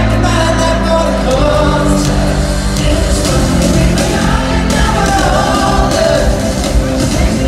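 Live pop band playing a song with a male lead singer singing into a microphone, loud through the arena's PA and recorded from among the audience.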